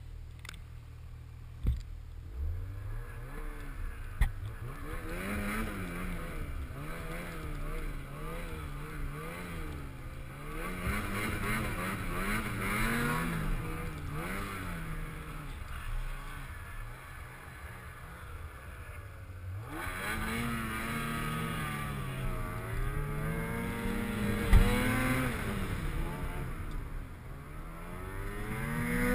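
Snowmobile engine running under changing throttle, its pitch rising and falling again and again as it rides over snow, with a few sharp knocks along the way.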